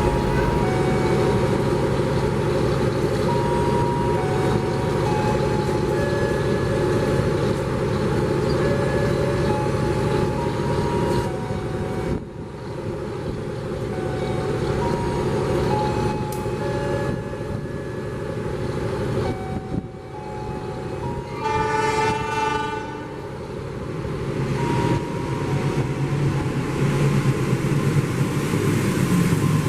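Train horn sounding once, for about a second and a half, about two-thirds of the way in, over a steady low railway rumble. Near the end a louder low rumble builds, as a train comes past on the adjacent track.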